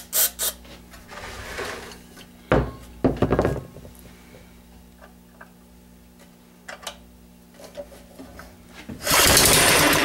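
Starting fluid hisses briefly into the carburetor, then the 3 hp Briggs & Stratton engine is cranked and pops a few times. Near the end it fires and runs loud for about a second with no muffler fitted before dying.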